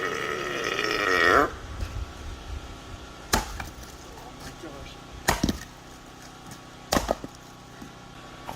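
A man's long, loud, wavering burp lasting about a second and a half. It is followed by three sharp knocks about two seconds apart.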